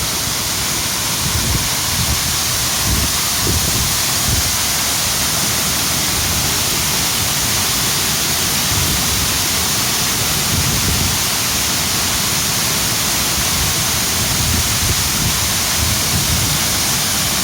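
A mountain stream rushing and splashing: a steady, loud rush of water and spray.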